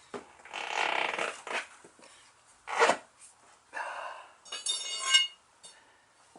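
A 30 x 3.5 clincher tyre being worked onto its rim: rubbery scrapes and rubs, a sharp knock about three seconds in, and a ringing metallic clink about five seconds in.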